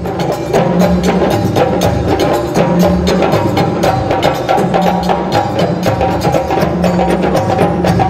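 African percussion ensemble playing a fast, dense drum rhythm. Many quick hand-drum strikes sound over low drum tones that step back and forth between two pitches.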